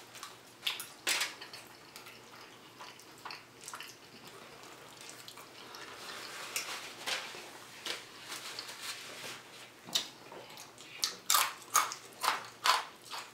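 Close-up eating sounds: wet chewing and lip smacks with occasional clicks of forks against plates. Crunchy bites of fried food come thicker and louder in the last few seconds.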